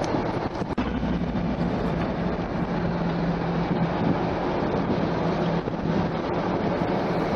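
Steady road and running noise of a car driving slowly, heard from inside the cabin, with wind noise on the microphone. A low steady hum comes in about a second in and fades out about a second before the end.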